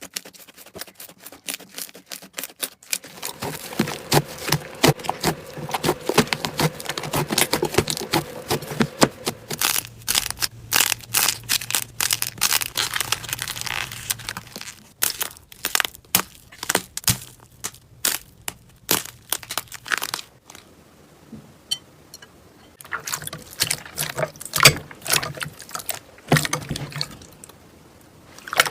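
Slime being squeezed and worked by hand, giving a dense run of sticky clicks and crackling pops. The clicks ease off for a few seconds about two-thirds of the way through, then pick up again.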